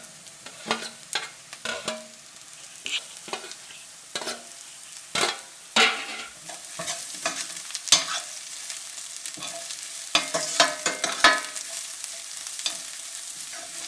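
Chopped garlic and onions sizzling as they fry in hot oil, while a spoon stirs and scrapes the pan with irregular clinks.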